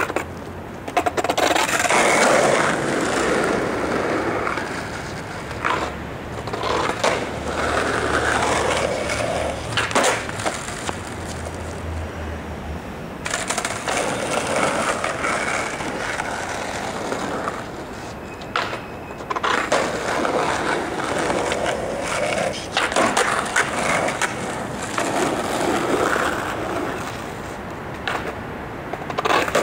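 Skateboard rolling on street asphalt, the wheel rumble coming and going in long stretches. Several sharp clacks of the board on the pavement are scattered through it.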